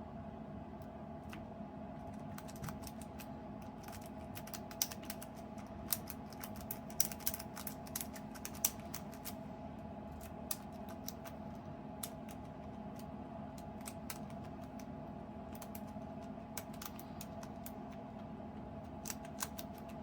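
A lock-pick rake being scrubbed in and out of an ABUS Titalium 64TI/40 padlock's keyway under tension: irregular flurries of small metallic clicks and scrapes as it rattles over the pin stacks, over a steady low hum. The raking does not open the lock.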